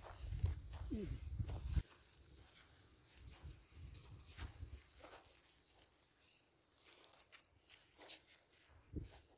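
Steady high-pitched chirring of insects such as crickets, with faint footsteps on dry soil. A low rumble sits under it for the first two seconds or so, then stops suddenly.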